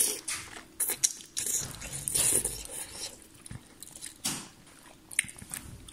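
Someone eating ramen noodles: bites and chewing, with about half a dozen short sharp wet noises.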